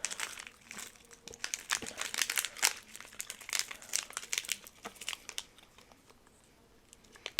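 Plastic snack packet of small hard candies crinkling and rustling as it is handled, in dense crackly bursts that die down after about five seconds.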